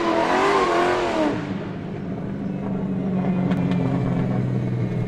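An engine revving with its pitch wavering up and down for about a second, then running with a steady low drone that cuts off near the end.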